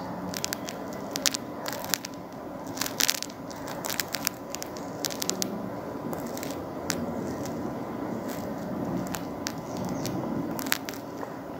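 Fabric being handled while it is measured and marked: soft rustling and scraping with small irregular clicks and ticks.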